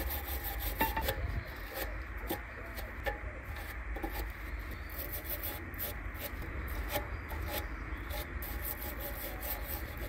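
Hand wire brush scrubbing rust and brake dust off a car's rear brake caliper holding bracket, in rapid, irregular back-and-forth strokes.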